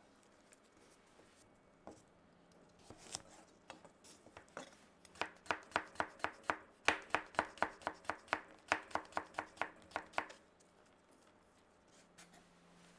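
Damascus-pattern chef's knife slicing a carrot on a cutting board. A few scattered cuts give way to a quick, even run of about five knife strikes a second, which stops a little over three quarters of the way through.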